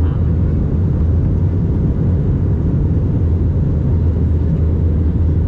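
Airbus A320-232 airliner in flight, heard inside the cabin at a window seat over the wing: a steady, deep drone of its IAE V2500 turbofan engines and the airflow over the fuselage.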